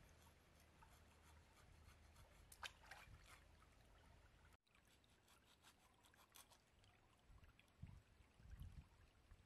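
Near silence: faint trickle of shallow stream water, with a few soft clicks and, near the end, some low thumps.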